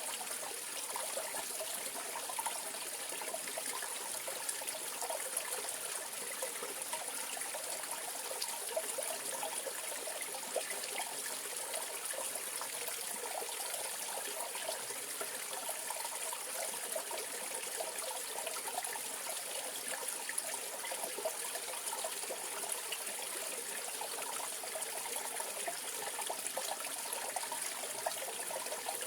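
Mountain valley stream flowing over rocks: a steady, continuous babble and trickle of running water.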